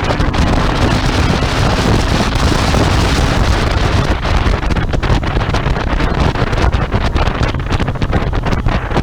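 Heavy wind buffeting on the microphone over a Royal Enfield Interceptor 650's parallel-twin engine running at road speed, loud and steady with frequent gusts.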